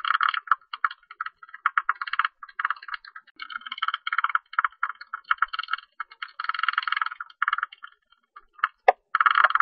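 Calls of a tube-nosed bat: rapid trains of short clicking pulses in bursts of about half a second to a second, with short gaps between them. There is a single sharper click near the end.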